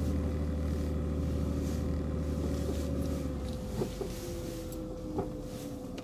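Car engine and road noise heard from inside the cabin while driving: a steady low drone whose deepest rumble fades a little past halfway, with a few light clicks.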